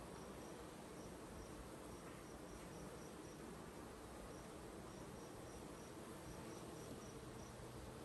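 Faint hum of honeybees at an open hive, with a high insect chirp pulsing a few times a second.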